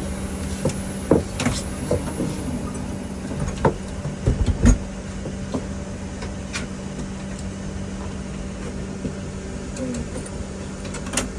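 Steady hum of an airliner cabin with scattered knocks and clicks, and a heavy low thud about four and a half seconds in, from the cabin door being handled and pulled shut.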